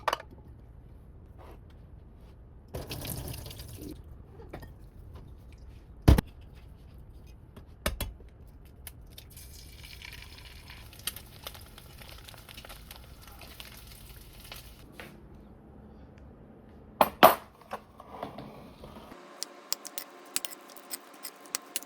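Kitchen sounds: a tap running for a few seconds at a time, with a few scattered sharp knocks and clinks of dishes.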